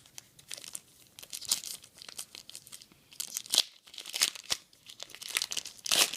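A trading-card pack wrapper being torn open and crinkled: a run of short crackling rustles, loudest about three and a half seconds in and again near the end.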